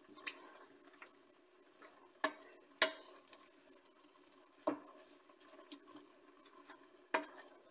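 Wooden spoon stirring chicken, spinach and mushrooms in a stainless steel pan, with four sharp knocks of the spoon against the pan over a soft, steady sizzle of the cooking food.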